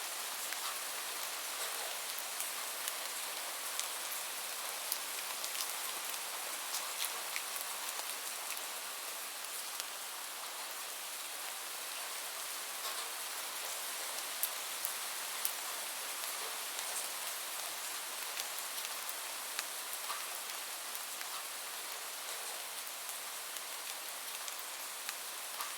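Light rain falling steadily: an even hiss with scattered individual drops ticking close by.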